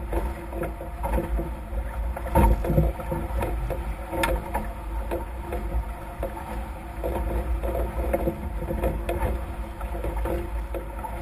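Nacra F18 sailing catamaran under way at speed: hulls rushing through the water with repeated splashes and slaps of spray, over a heavy low wind rumble on the microphone. A steady hum sits underneath, and a louder slap comes about two and a half seconds in.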